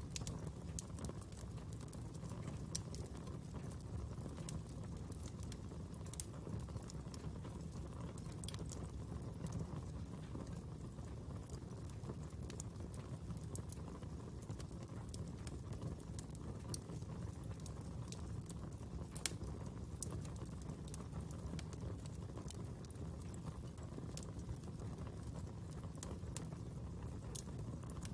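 A fire crackling: irregular sharp crackles and pops over a steady low background noise.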